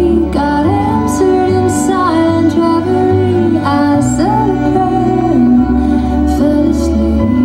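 Slow, gentle music: a gliding melody line over long held low notes.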